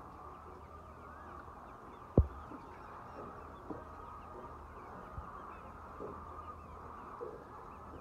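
A large flock of white chickens clucking and calling together in a steady, dense chorus. A single loud thump about two seconds in, with a few fainter knocks later.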